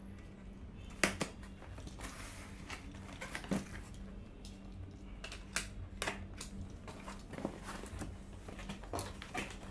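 A cardboard shipping box being cut open with a small cutter: irregular scrapes, taps and cracks of the blade on packing tape and cardboard, the sharpest crack about a second in.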